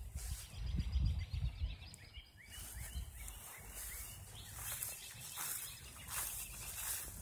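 Small birds chirping with many short, rising calls, starting about two seconds in. A low rumble of wind on the microphone comes before them.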